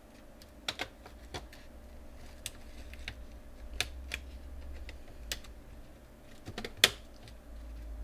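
Irregular small plastic clicks and taps as a plastic card is worked under the top edge of a Toshiba NB505 netbook's keyboard to pry it out of its clips, with the keyboard shifting under the hands; the loudest click comes near the end.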